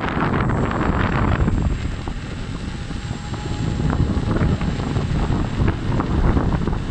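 Wind buffeting a microphone travelling at riding speed with a Gotway MSuper X electric unicycle, a heavy, rough low noise that eases a little in the middle.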